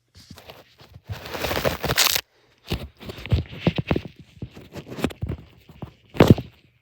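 Rustling and scraping with many sharp clicks and crackles, a dense burst about a second in and one loud click near the end.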